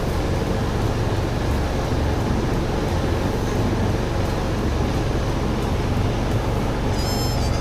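Steady low rumbling background noise with no clear events. Near the end comes a brief high-pitched electronic beep about a second long.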